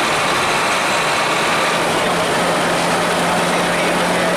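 Hino AK-3 bus's diesel engine rumbling under load on a hill climb, mixed with dense road and cabin noise. A steady low hum comes in about two seconds in and holds.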